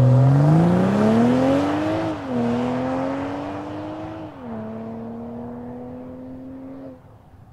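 BMW M340i Touring's turbocharged straight-six accelerating hard, the revs climbing and dropping back at two upshifts, about two and four and a half seconds in, then holding steady as the sound grows fainter.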